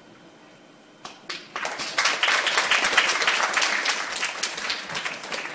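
A congregation applauding at the end of a farewell speech. It starts about a second in, swells quickly and then slowly tapers off.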